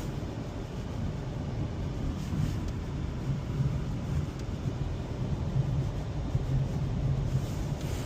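Steady engine and road noise inside the cabin of a moving 2003 Honda Civic Hybrid, a low hum that rises and falls slightly, on a test drive after its hybrid battery replacement.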